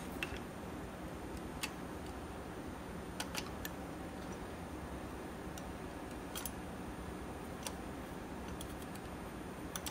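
Occasional small metallic clicks from a hand pick and the links of a BMW N54 engine's high-pressure fuel pump drive chain being handled at its sprocket, spread a second or more apart over steady background noise.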